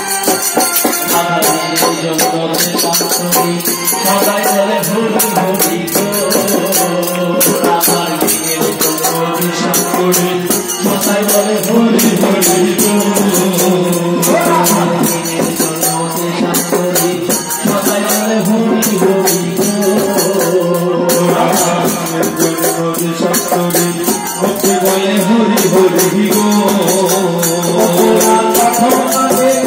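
Live Bengali kirtan: devotional group singing with a khol drum and small brass hand cymbals (kartal) keeping a steady jingling beat, amplified through microphones.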